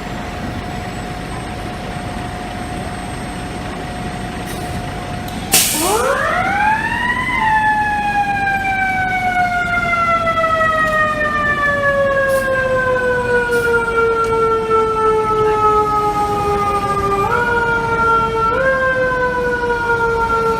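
Fire truck's Federal Q mechanical siren winding up sharply about five and a half seconds in, right after a short loud blast. It then coasts slowly down in pitch and is given two brief pushes back up near the end, over low engine and street noise. Before it, a faint steady tone sits under the engine and street noise.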